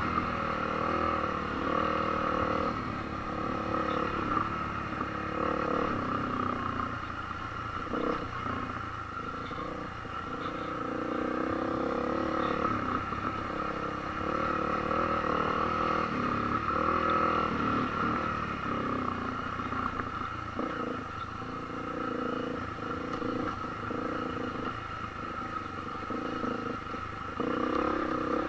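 Honda CRF250L's single-cylinder four-stroke engine running at low revs, its pitch rising and falling every few seconds as the throttle is worked over rock.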